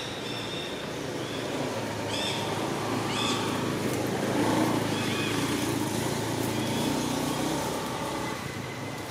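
A motor vehicle's engine drones, growing louder to its peak about halfway through and then fading. Short bird chirps repeat over it.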